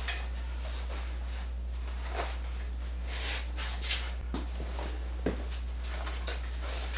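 A few sparse light knocks and clanks of a heavy machine tool being shifted on machine skates, over a steady low hum.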